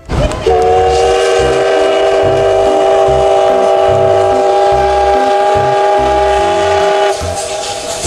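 Steam locomotive's whistle sounding one long chord blast of several notes at once, starting about half a second in and cutting off near the end, over the low chuffing rumble of the working engine.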